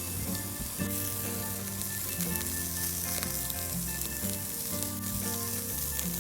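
Steady sizzling crackle, with background music's low notes changing underneath.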